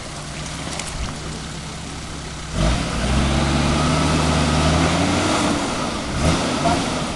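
A vehicle engine running, picking up loudly about two and a half seconds in with its pitch rising slightly, then easing off near the end, as the vehicle is manoeuvred back and forth.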